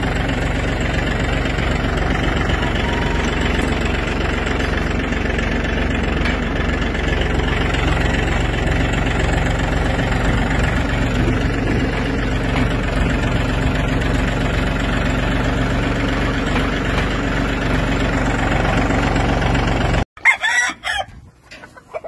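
Compact tractor engine running steadily for about twenty seconds. It then cuts off abruptly, and chickens cluck while a rooster crows.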